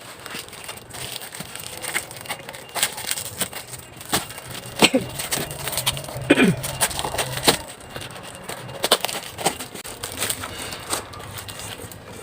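Crackling and crinkling of a parcel's wrapping being handled and torn open by hand: many sharp irregular clicks and crackles. Two brief falling tones come about five and six and a half seconds in.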